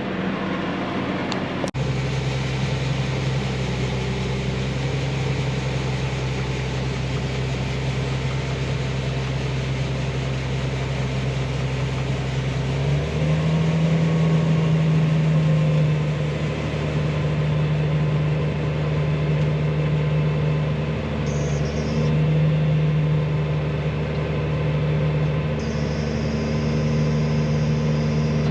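Combine harvester engine running steadily while picking corn, with a low hum that steps up in pitch and gets a little louder about halfway through.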